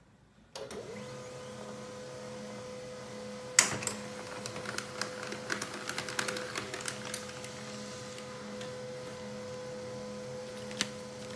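HP LaserJet 1020 laser printer starting up and printing an envelope: after a moment's quiet, a steady motor hum with a constant whine sets in. A loud clack comes about three and a half seconds in, then a run of clicks and ticks as the envelope feeds through, and one more click near the end.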